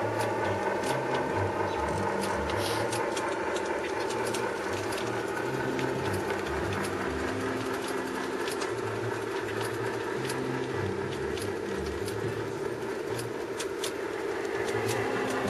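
G-gauge model freight cars rolling past on the track, their wheels clicking irregularly over rail joints, over the steady electronic diesel engine sound from the locomotives' Dallee sound units, which grows louder near the end.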